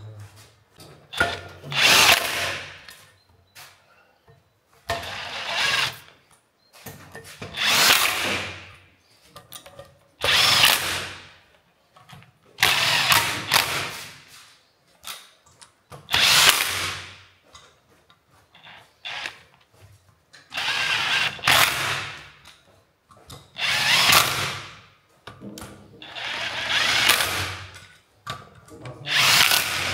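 A handheld power tool run in about ten short bursts, one every two to three seconds, while working on a van's rear brake hub.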